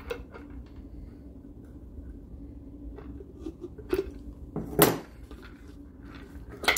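Hands working a loose plastic fitting and nut on a powder coating hopper: scattered small clicks and knocks, with one louder short clatter just before five seconds in, over a low steady hum.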